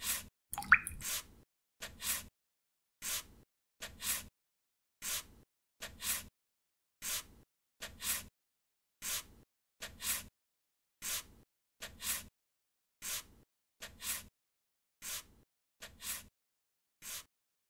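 Watercolor brush strokes rubbing across heavy cold-press paper, recorded and laid down as a steady rhythm of soft swishes about once a second, each a short stroke followed by a longer one. A single water drip plops just after the start.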